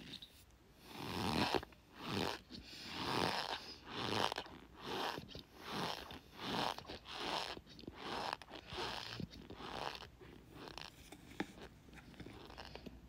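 Laundry-scented Argo cornstarch squeaking and crunching as it is pressed, in a steady run of strokes a little more than one a second, loudest in the first few seconds and weaker toward the end. One sharp click near the end.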